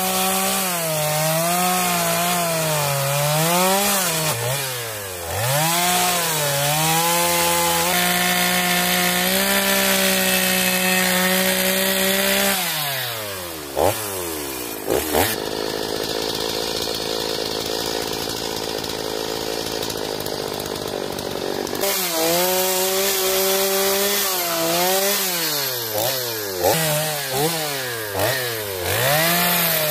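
Two-stroke chainsaw carving wood, its engine pitch dipping and recovering again and again as the chain bites into the cut and is eased off. About halfway through the revs fall away and several seconds of steady noise without engine pitch follow, then the saw is heard cutting again.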